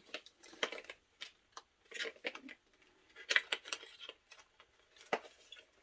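Handling and opening a slim cardboard sleeve of packaging: scattered rustles, scrapes and small clicks, with one sharper click about five seconds in.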